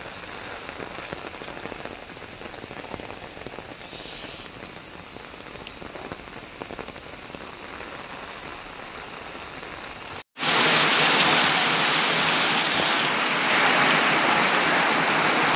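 Heavy rain falling on a paved street, a steady hiss. About ten seconds in it cuts out for a moment and returns much louder and harsher, a heavier downpour.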